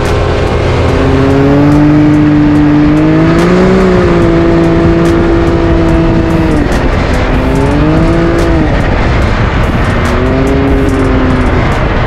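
Quad ATV engine running under way, its pitch falling and rising several times with the throttle, over a steady rushing noise.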